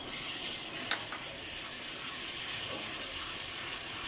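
Garlic-ginger paste sizzling in hot oil in a metal wok as it is stirred with a wooden spatula: a steady hiss, with a few light scrapes of the spatula about a second in.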